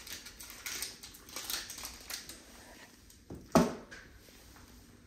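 Styrofoam and cardboard packing being handled and pulled from a box: irregular short scraping and rustling strokes, with one loud short sound about three and a half seconds in.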